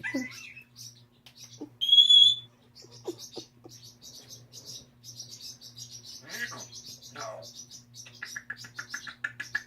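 African grey parrots chattering with rapid high clicks and chirps. One loud, clear whistle comes about two seconds in, and a fast run of repeated chirps comes near the end.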